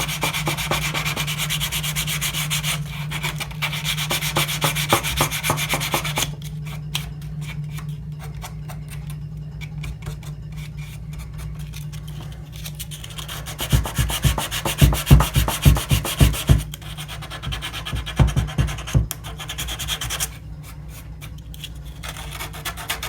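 Sandpaper rubbed back and forth by hand over a wooden capping rail of a model ship, in rapid strokes that turn heavier and louder about two-thirds of the way through. A steady low hum runs underneath.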